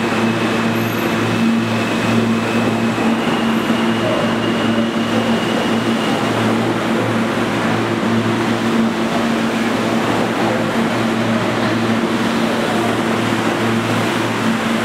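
New York City Subway train of stainless-steel cars running along the platform, a loud steady rumble of wheels on rail and car bodies, with an unchanging hum underneath.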